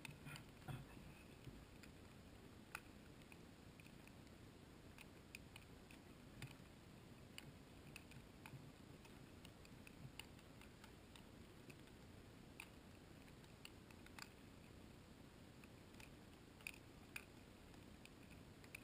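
Near silence in falling snow, broken by about a dozen faint, sharp ticks at irregular intervals: snowflakes landing on the GoPro's waterproof housing.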